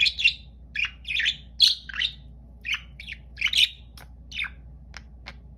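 Budgerigars chirping: a quick, irregular run of about a dozen short chirps, over a faint steady low hum.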